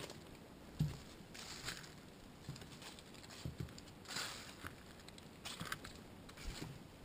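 Footsteps on a wooden boardwalk strewn with dry leaves: dull thuds of footfalls on the boards at a walking pace, with brief scuffs of leaves underfoot.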